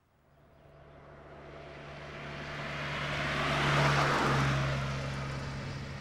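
A car driving past over a steady low hum, its noise swelling to a peak about four seconds in and then fading away.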